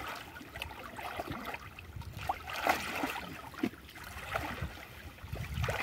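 Water in a small pond, with small irregular splashes and trickling.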